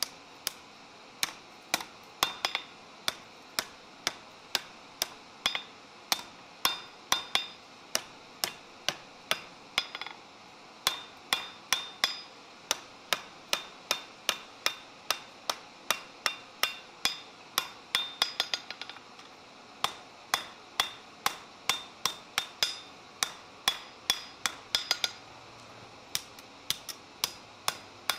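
Blacksmith's hand hammer striking a red-hot steel bar on an anvil: a steady run of ringing blows, about two to three a second, with brief pauses, as the bar is forged and bent.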